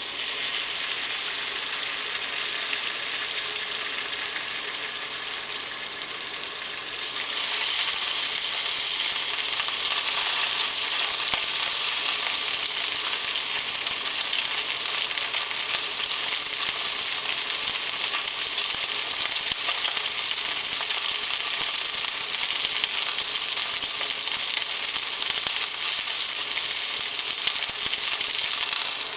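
Boneless pork cuts searing in hot sesame seed oil in a skillet, a steady sizzle that starts suddenly and grows louder about seven seconds in, as the fat melts.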